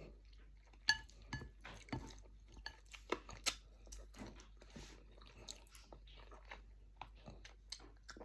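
Close-miked eating sounds from a dish of chicken feet and dry rice-vermicelli noodles: irregular wet chewing, smacking and small crunches, with a sharp click about a second in.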